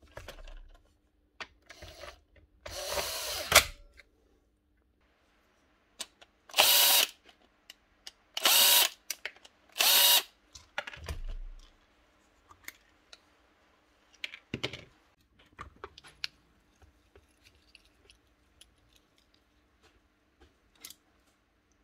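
Bosch cordless impact driver running in several short bursts, the longest about a second, undoing screws and nut-and-bolts, with light handling clicks between the bursts.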